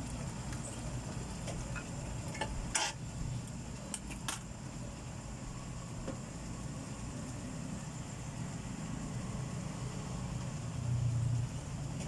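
Wooden spatula stirring chicken-gizzard adobo in a frying pan, with two sharp knocks of the spatula against the pan about three and four seconds in. A steady low hum runs underneath.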